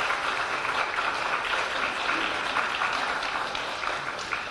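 Audience applauding, a steady patter of many clapping hands that fades near the end.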